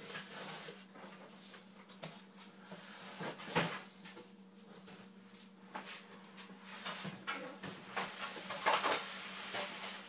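Irregular rustling, scraping and light knocks as a boxed PC case and its packaging are handled, over a steady low hum.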